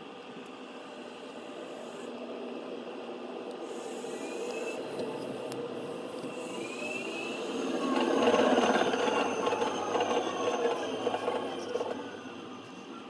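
A steady mechanical whirring hum that builds slowly, is loudest about eight to twelve seconds in, then fades away.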